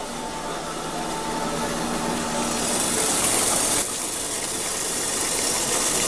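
HHO electrolysis reactor and water bubbler running, gas bubbling through with a steady rattling hiss that grows louder. The hiss is strongest about three seconds in, dips briefly, then builds again.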